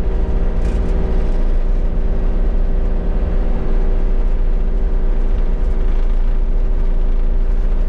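Kubota KX033-4 mini excavator's three-cylinder diesel engine running at wide-open throttle under load on a steep climb, heard from inside the cab. The engine note holds steady with no sag, so the power loss it is being tested for is not showing.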